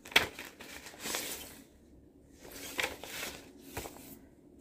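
Paper inner sleeve rustling in several short bursts as a vinyl LP is handled and slid partly out of it, with a sharp click just after the start.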